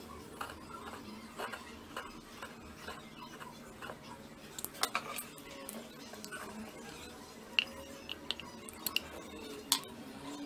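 Scattered light clicks and taps of a marker pen and plastic parts being handled on a workbench, with a few sharper clicks about halfway through and again near the end.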